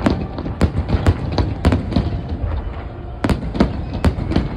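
Fireworks display: a quick, irregular string of sharp bangs from bursting shells, about ten of them, over a continuous low rumble.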